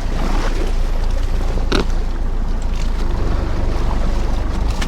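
Fishing boat's engine running with a steady low rumble, with wind and water noise over it, and one sharp knock a little under two seconds in.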